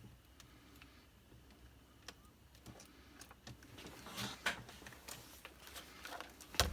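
A quiet room with faint, scattered clicks and taps, a few grouped about four seconds in and a sharper click near the end.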